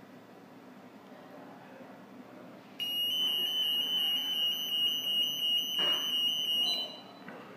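Alarm panel buzzer sounding a steady, high-pitched tone for about four seconds, starting about three seconds in. A single click comes about a second before it cuts off.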